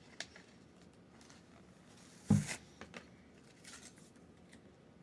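Quiet handling of plastic toy packaging, with a few faint clicks and a light rustle, and one short thump about two seconds in.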